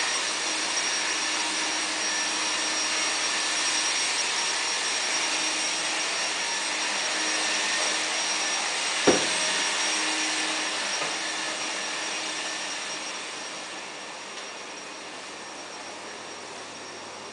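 Steady, loud rushing noise like a blower running, easing off a little in the last few seconds. About nine seconds in, one sharp knock from the wall bed as it is pulled down out of its cabinet.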